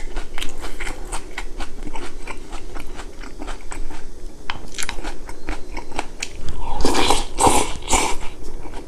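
Close-miked chewing of a mouthful of beef head meat and rice from gukbap, with many small wet clicks of the mouth. Near the end come a few louder slurps of hot broth from a spoon.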